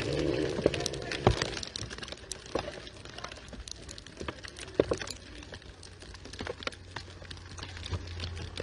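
Music dies away in the first second and a half, leaving scattered sharp clicks and cracks, the loudest about a second in and near the middle, over a low steady hum that grows stronger about five seconds in.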